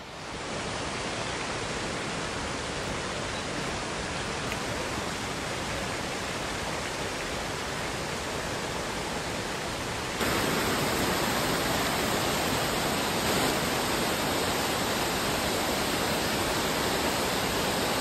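Steady rushing of a small waterfall cascading over rocks, stepping up louder about ten seconds in.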